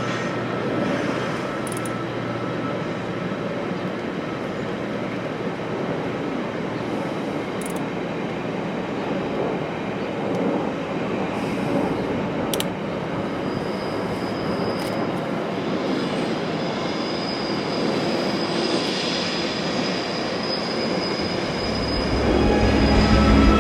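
Loaded freight test train rolling steadily past on the rails, a continuous rumble of wheels on track with a thin high squeal in the second half. Background music fades in near the end.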